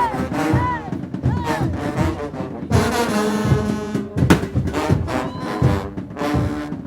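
Mexican brass banda playing live: brass horns with drums. It opens with short swooping phrases, then the full band comes in with held chords about three seconds in.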